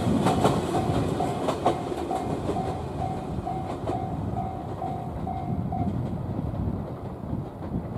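A 115-series electric multiple unit train running away, its wheels clicking over rail joints during the first two seconds and the rumble fading. A level-crossing warning bell dings about twice a second and stops about six seconds in.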